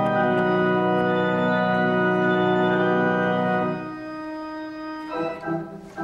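1929 cinema organ playing a full sustained chord with a strong bass; the bass drops out a little before four seconds in and the upper notes fade out about five seconds in.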